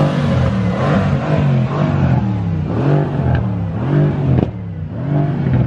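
Mercedes-AMG V8 engine being revved in repeated blips, its pitch rising and falling about six times.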